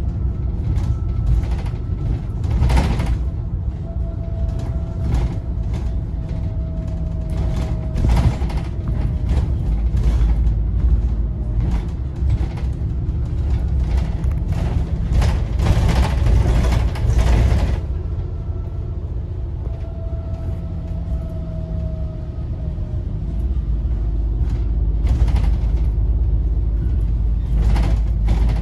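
Double-decker bus on the move, heard from the upper deck: a steady low rumble with rattles and creaks from the body and fittings, rattling hardest for a few seconds past the middle. A faint whine falls in pitch twice.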